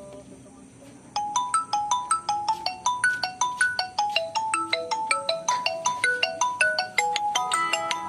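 Mobile phone ringtone: a quick, repeating tune of short, bright notes that starts about a second in and cuts off abruptly at the end.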